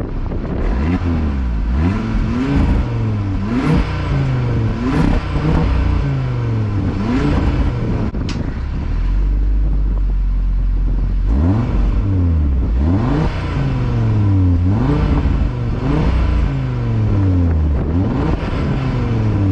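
Stock-exhaust 2024 Audi RS3's turbocharged 2.5-litre inline five-cylinder being revved repeatedly in quick blips, each rising and falling in pitch. It settles to idle for a few seconds about halfway through, then another run of revs follows.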